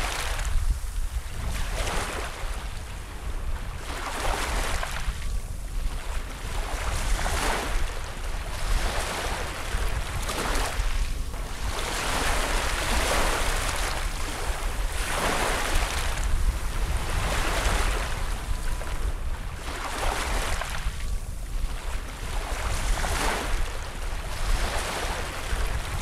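Small waves breaking and washing up a stony beach, surging in and drawing back every couple of seconds, with wind rumbling on the microphone.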